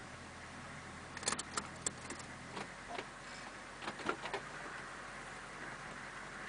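Cab interior of a 1991 GMC diesel Suburban with the engine idling: a steady low hum, broken by two short clusters of clicks and rattles, one about a second in and another around four seconds in.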